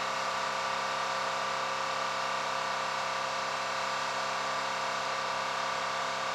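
Steady engine whine over a rushing hiss, several fixed tones held without change.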